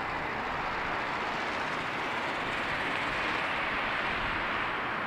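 Jet engine noise of an Airbus A320 on final approach: a steady, even rush of sound that swells slightly midway.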